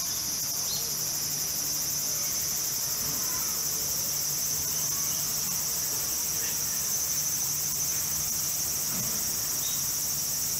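A steady chorus of insects, high-pitched and finely pulsing, with a low steady hum underneath.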